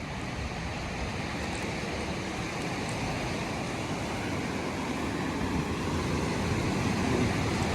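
Rough sea surf breaking in a continuous wash, with wind on the microphone, slowly growing louder.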